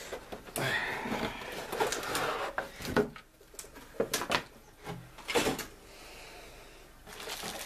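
Handling noise from a large plastic model-kit hull section and its cardboard box: rustling and scraping, then several separate knocks and clicks of plastic against cardboard.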